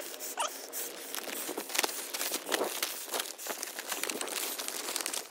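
Clear plastic vacuum-storage bag crinkling and rustling as a man breathes in and out of it through its one-way valve, with a brief squeak about half a second in.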